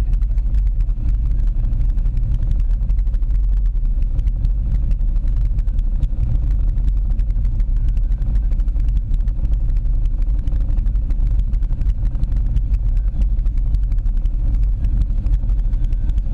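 ATV engine idling close to the microphone: a steady low rumble that does not change.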